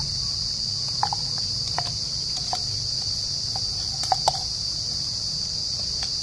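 A steady high insect drone, with a few short sharp metallic taps and scrapes. The taps come from a knife knocking crushed ginger, garlic and green chilli out of a steel tumbler into a clay kadhai, two of them close together about four seconds in.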